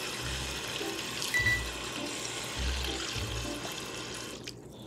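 Kitchen tap running into a bowl of carp roe as it is rinsed by hand, a steady rush of water that cuts off near the end. Background music with distinct notes underneath.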